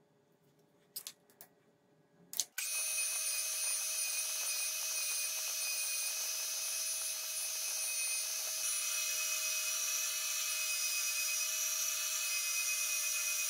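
A few light clicks as the lathe's tool post is handled, then about two and a half seconds in a metal lathe starts cutting: a steady high hiss with constant whining tones as an indexable carbide insert turns a steel workpiece.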